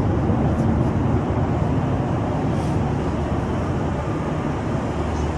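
Steady cabin noise inside a Boeing 737-800 in flight: the even rush of its CFM56-7B engines and the airflow, strongest at the low end.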